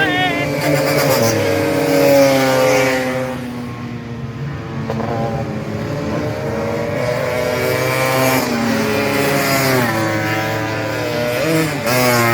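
Several tuned 180cc two-stroke Vespa racing scooters revving hard and passing, their engine notes overlapping and rising and falling in pitch. The sound dips about four seconds in and swells again near the end as more scooters go by.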